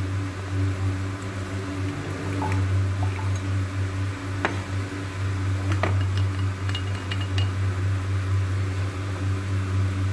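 Liquid poured from a plastic bottle into a glass beaker, then a few light clicks and clinks of glass and bottle being handled about halfway through, over a steady low hum.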